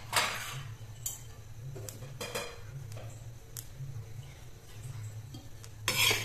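A few scattered metallic clinks. About six seconds in, a metal spatula starts scraping dry-roasted peanuts across the pan and onto a steel plate, with a steady low hum underneath.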